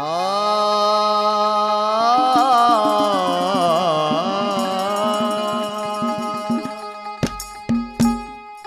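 Live bhajan music: a singer rises into one long held note and ornaments it with wavering bends, over a steady sustained accompaniment. Quick drum strokes join about halfway, with a few sharp strikes near the end.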